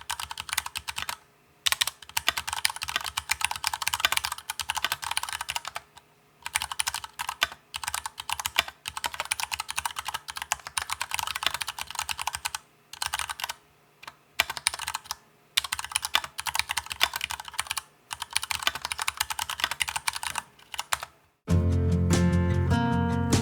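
Fast typing on an Archon FX2 full-aluminium mechanical keyboard with stock Cherry MX Brown switches, in runs of a few seconds broken by short pauses. Guitar music comes in near the end.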